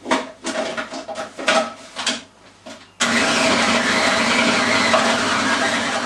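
Knocks and clatter of the food processor's lid and pusher being handled, then about three seconds in its motor starts abruptly and runs steadily, the blades chopping wild garlic leaves, bread, herbs and olive oil into a thick paste.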